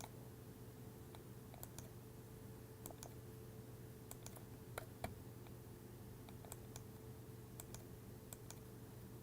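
Faint computer mouse clicks, about a dozen at irregular intervals, over a low steady hum.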